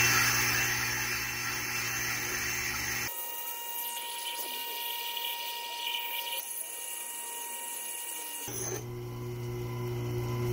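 Tormek wet sharpening machine running: its motor hums steadily while the coarse side of a stone grader is held against the turning wet grindstone, a steady grinding hiss that gives the stone its rough grit. The low hum cuts out abruptly about three seconds in and returns near the end.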